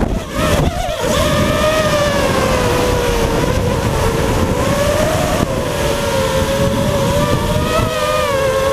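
FPV racing quadcopter's electric motors and propellers whining, heard from on board, the pitch wavering up and down with the throttle over a steady rushing noise. The whine dips and breaks up briefly in the first second.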